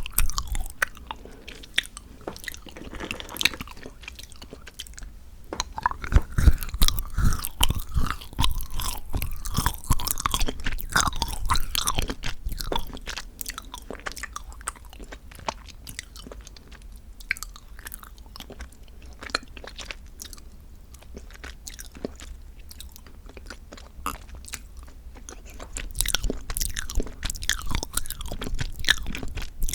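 Close-miked chewing and crunching of chocolate, a dense run of small crackles. Louder, crunchier stretches come a few seconds in and again near the end, with softer chewing in between.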